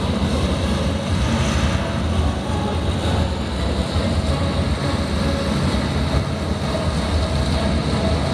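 A loud, steady low rumble with a rushing haze above it: the sound-effects track of the building-projection show played over loudspeakers, as the projected water cascades down the hotel facade.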